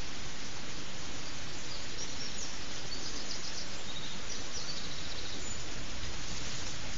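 Steady hiss of a trail camera's microphone, with faint high bird chirps between about two and four seconds in.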